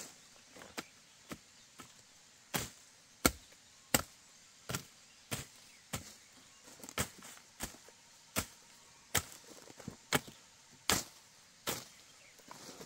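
A hand tool chopping repeatedly into brush and earth: sharp strokes about one every two-thirds of a second, some much louder than others.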